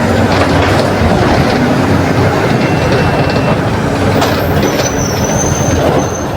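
Mercedes-Benz OF 1721 city bus's front-mounted diesel engine running steadily under way, with the body and fittings rattling. A thin high whine comes in near the end.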